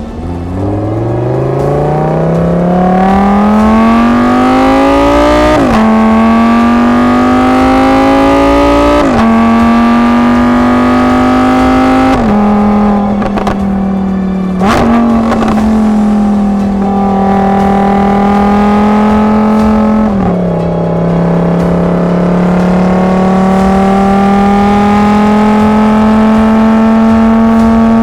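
Lamborghini Huracán EVO's naturally aspirated V10 accelerating through the gears. The pitch climbs steeply from low revs at first, then drops suddenly at each upshift, four or five times. After each shift it rises more gently, and the last gear holds and slowly climbs through the second half.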